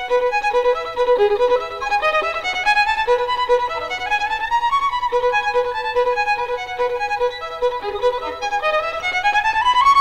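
Solo violin playing a melody of quick notes that keeps returning to one repeated lower note, climbing in a rising run near the end.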